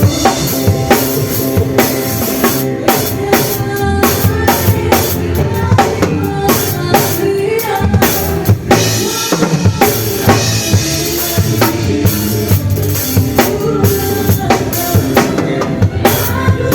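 Drum kit playing a steady beat, with kick drum, snare and rimshots, over bass and other pitched instruments in a band.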